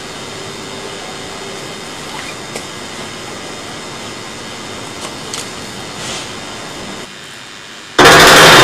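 Steady hiss of hall background noise with a few faint small knocks. About eight seconds in, loud percussive theatre music with drums and wood-block strokes cuts in suddenly.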